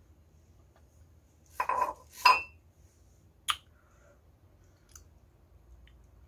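A ceramic mug set down with a clink: two knocks about half a second apart, the second ringing briefly, then a light click about a second later.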